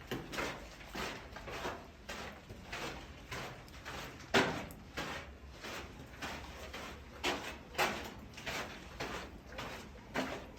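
Footsteps on a hiking trail, an even walking pace of about two steps a second, with a few heavier steps.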